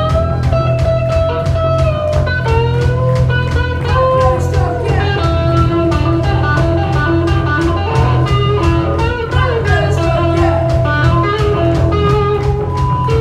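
A young rock band playing live: electric guitar and drums keeping a steady beat under a held lead melody whose notes bend and slide in pitch.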